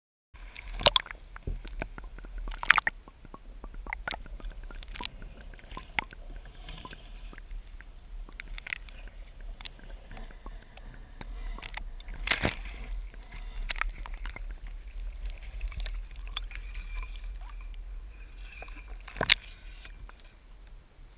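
Water sloshing and gurgling around an action camera held at the surface of a river, with a few sharp knocks: the strongest about a second in, near three seconds, about twelve seconds in, and near the end. A steady low rumble runs beneath.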